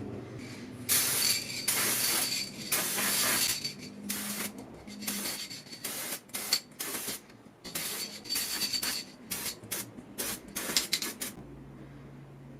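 A spray nozzle hissing in bursts: a few longer sprays of a second or two, then a quick run of short ones. A faint whistle rides on several of them.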